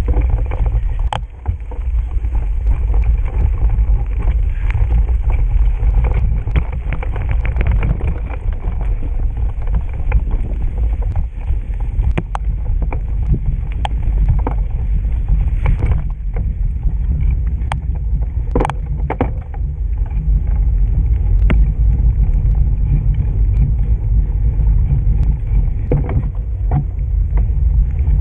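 Riding a bicycle over a rough trail: steady low wind rumble on the microphone, with scattered sharp knocks and rattles from the bike over bumps.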